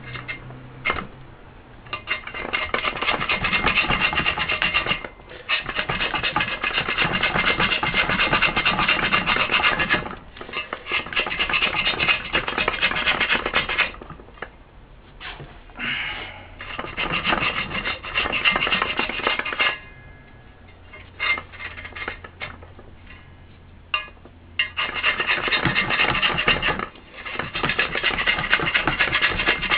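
A metal scraper blade scraping old foam surround residue off the edge of a Yamaha JA3060 woofer cone and frame. It comes as long stretches of dry scratching a few seconds each, with short pauses between, the longest pause about two-thirds of the way through.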